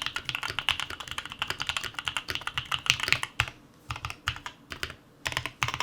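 Typing on an Odin Gaming Nova65 mechanical keyboard fitted with Tecsee linear switches: a fast, continuous run of keystrokes that about three seconds in slows to scattered single presses and short bursts.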